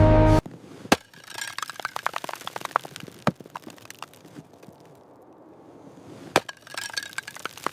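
A series of sharp cracks and clinks of something brittle breaking. Small cracks come in a quick cluster, with a loud single crack about three seconds in and another near the end, followed by more clinking.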